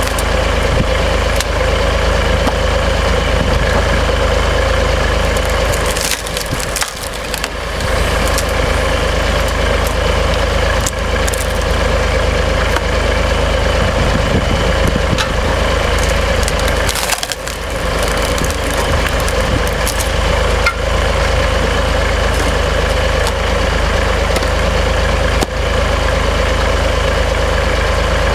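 Tractor engine running steadily, driving a Hy-Crack HC1X screw-cone log splitter through the PTO, as the spinning threaded cone screws into oak logs and splits them with sharp cracking and splintering. The drone dips briefly twice.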